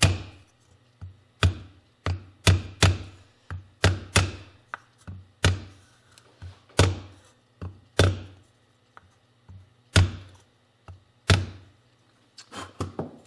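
Mallet striking a wooden driver to seat the left crankshaft oil seal into the Yamaha YL1's cast engine case: a dozen or so dull knocks at uneven intervals, about one a second, with a quicker cluster of lighter taps near the end as the seal is driven flush with the casting.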